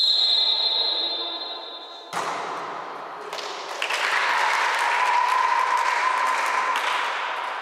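A referee's whistle blown long, for about two seconds, then cutting off, followed at once by cheering and shouting, with one shout held for about three seconds.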